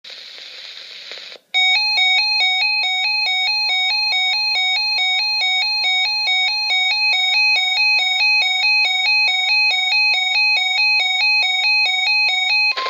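Emergency weather radio alert: a loud electronic alarm switching rapidly back and forth between a higher and a lower buzzy pitch, over a steady single attention tone that starts a couple of seconds in and carries on alone as the alarm cuts off near the end. It opens with about a second of radio static.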